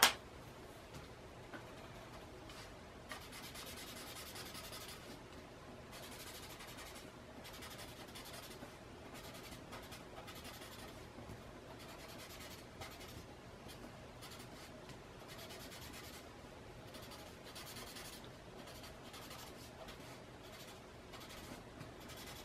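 Paper blending stump rubbing graphite shading into a paper art tile, a faint dry scrubbing that comes and goes in short stretches of strokes.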